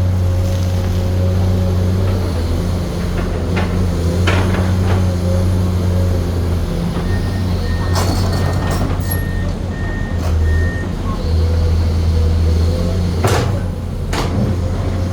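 Komatsu PC210 hydraulic excavator's diesel engine running steadily under work, with a few sharp knocks. A run of short warning beeps, about two a second, sounds for several seconds midway.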